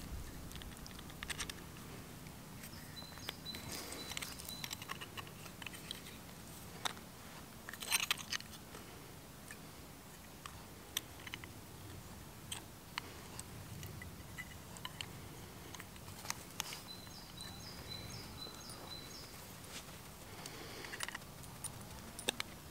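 Small metal clicks and scrapes, in no steady rhythm, as copper wire is bent with pliers around a steel mandrel; a louder cluster comes about eight seconds in. A short run of high chirps sounds twice, a few seconds in and again about two-thirds through.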